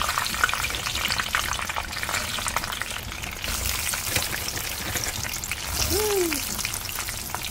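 Battered squid pieces deep-frying in hot oil, a steady crackling sizzle.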